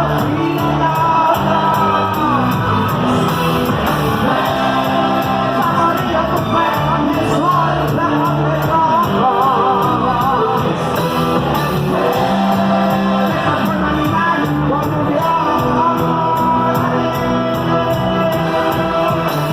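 Live cuarteto band playing loudly with a steady percussion beat, and a voice singing over it.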